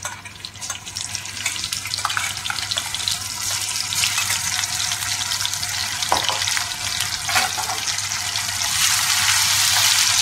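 Ginger-garlic paste frying in hot ghee and oil in a steel kadai, a steady sizzle that grows louder partway through. A few spoon knocks against the pan come just past the middle.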